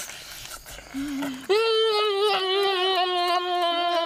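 A short low hum about a second in, then a person's voice holding one long, slightly wavering note that slowly falls in pitch, an appreciative drawn-out "mmm" while eating roasted meat.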